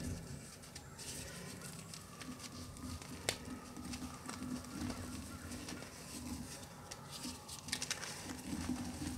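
Reformed gym chalk crushed by hand in a plastic tub: soft crumbling and crunching with scattered crackles as the pressed powder breaks apart, one sharper snap about three seconds in and a quick cluster of crackles near the end.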